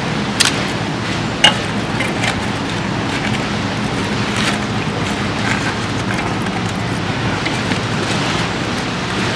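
Metal tongs clicking and rustling against foil-wrapped packets on a charcoal kettle grill, with a few sharp clicks over a steady hiss.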